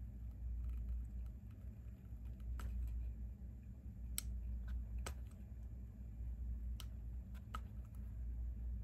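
Small hard clicks and ticks from picking leftover support bits out of the eye sockets of a resin 3D print, about five sharper ones spread through, over a steady low hum.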